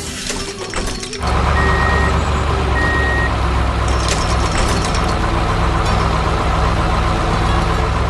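Heavy construction-vehicle engine running steadily. It comes back in loud after a short dip about a second in. Two short high beeps sound about a second apart, like a reversing alarm.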